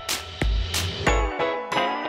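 Background music: bright, chiming bell-like notes over a steady beat with a deep bass thump.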